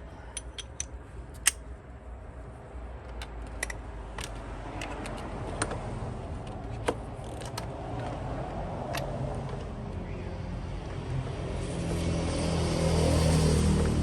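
Scattered sharp metallic clicks and clinks of hand tools working in a car's engine bay. About twelve seconds in, a louder low motor-vehicle engine sound builds up.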